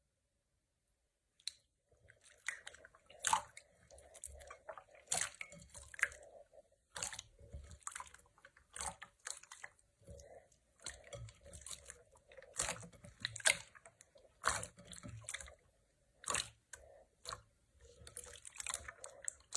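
Slime being squeezed and pressed by hand: irregular sticky clicks, pops and crackles, starting about a second and a half in.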